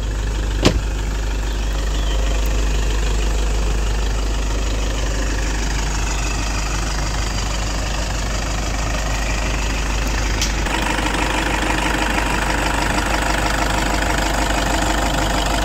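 Toyota Innova's 2.5-litre 2KD-FTV four-cylinder turbo-diesel idling steadily with a light diesel clatter, running smoothly, which the seller calls very crisp. A sharp click comes under a second in, and another about ten and a half seconds in, after which the engine sounds fuller and clearer.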